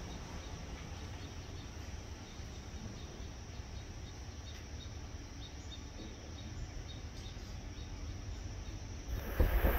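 Faint outdoor ambience: a low steady rumble and a run of soft, high insect chirps. Near the end a loud train rumble cuts in abruptly: an approaching Amtrak train.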